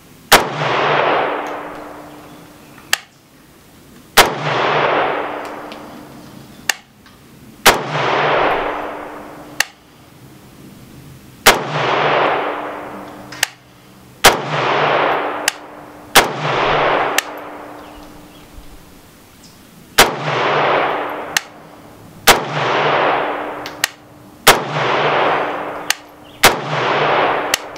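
About ten slow, aimed shots from a Zastava N-PAP AK-pattern rifle in 7.62×39 with a muzzle brake, fired two to four seconds apart. Each loud report is followed by a long rolling echo. Fainter sharp cracks fall between the shots.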